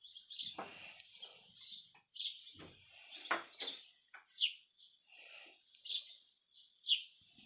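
Small birds chirping repeatedly in short, high calls, with a few soft rustles in between.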